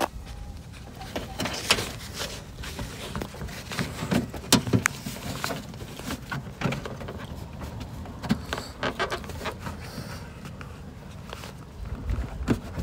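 Irregular clicks, knocks and rattles of hands working at a Toyota RAV4's rear hatch latch and its metal linkage rod.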